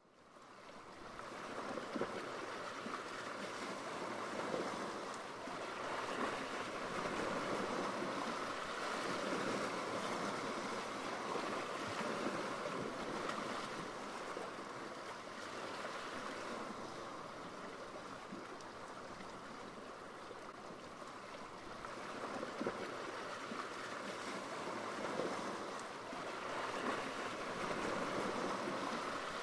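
Rushing sea water and breaking waves, a steady wash that fades in at the start and then swells and eases in slow surges.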